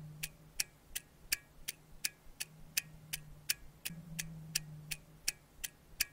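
Clock ticking sound effect, even ticks about three a second, used as a time-passing cue. A faint low hum comes and goes underneath.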